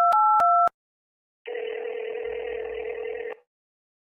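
Telephone sound effects: the last few touch-tone keypad beeps of a number being dialed, two notes at once and changing pitch every third of a second, end about two-thirds of a second in; after a short gap a steady ringing tone plays for about two seconds, the ringback of the call going through.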